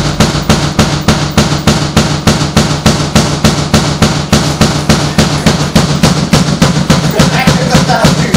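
A band playing live: a drum kit pounds out a fast, even beat of about five hits a second, with cymbals, over a held low note.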